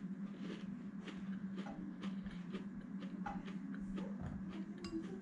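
Cereal being chewed with the mouth closed: soft, irregular crunching clicks, two or three a second, over a steady low hum. Near the end a spoon clinks once against the ceramic bowl.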